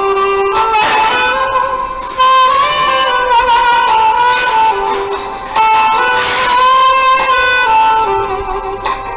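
Background music: a melody of held notes that step from one pitch to the next.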